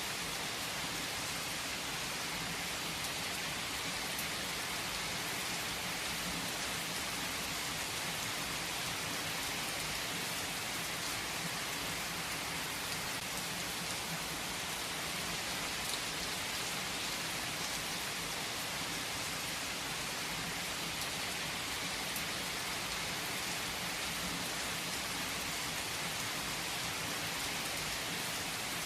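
Steady rain falling: an even hiss of rain with a few separate drops ticking now and then.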